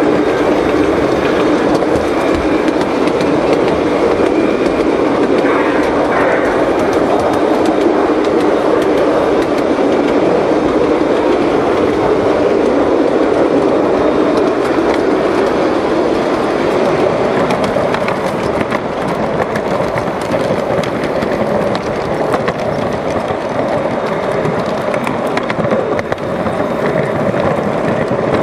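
Large-scale garden-railway train running on its track: a steady rolling noise from the wheels and cars, easing slightly about two-thirds of the way through.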